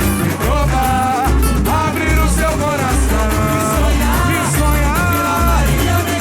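Samba-enredo music from a samba school, with deep drums pulsing about once a second under a bending melodic line.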